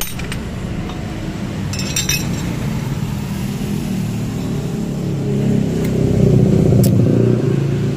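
An engine running steadily, growing louder for a couple of seconds about six seconds in. A sharp metallic clink sounds about two seconds in.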